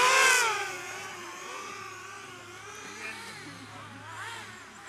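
Racing quadcopter's electric motors and propellers whining as it flies close past, loudest in the first half second, the pitch sweeping up and down. After that the whine goes on fainter, still rising and falling in pitch.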